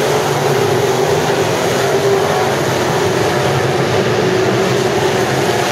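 Pack of sport modified dirt-track race cars running laps under power, a continuous, dense engine drone whose pitch wavers as the cars go around.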